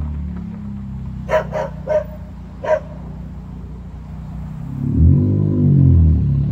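Straight-piped three-cylinder engine of a first-generation Honda Insight, running with no exhaust at all, revs up and back down near the end, the loudest part. A dog barks four short times in the first half.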